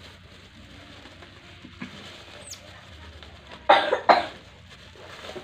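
Two loud coughs about half a second apart, a little over halfway through.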